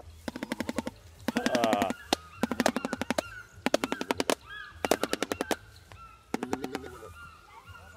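Shoebill clattering its bill: six bursts of rapid clicks in quick succession, each under a second long, like machine-gun fire. The bird clatters with its head bowed low, a display the keeper takes for disapproval at being left alone.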